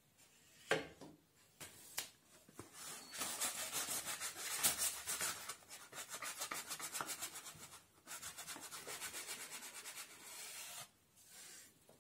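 Hand sanding with sandpaper on a small wooden block with a copper edge strip: quick, even back-and-forth rubbing strokes, with a short break about eight seconds in. A single knock, the piece set down on the bench, comes about a second in.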